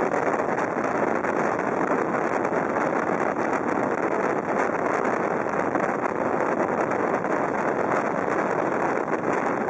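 Passenger sleeper train running at speed, heard at a carriage window: a steady rush of air and wheel-on-rail noise with no change.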